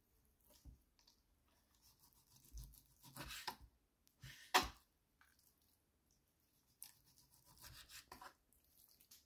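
Sharp kitchen knife slicing raw beef thinly on a wooden cutting board: quiet, irregular cutting and scraping strokes, with one sharper click about halfway through.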